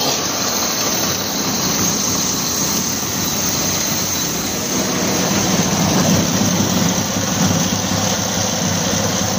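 Suzuki F6A three-cylinder engine running on its carburettor after a no-start repair, growing somewhat louder about halfway through.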